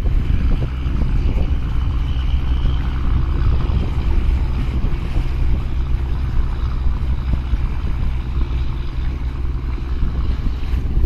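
A boat's engine running with a steady low rumble, mixed with wind buffeting the microphone and water splashing.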